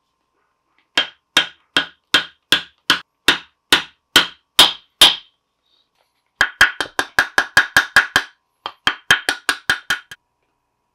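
A mallet beats a silver elephant piece over a bangle mandrel, bending it into a bracelet. Each blow lands with a short metallic ring. About a dozen evenly spaced blows come at two or three a second, then after a brief pause two quicker runs of lighter taps follow.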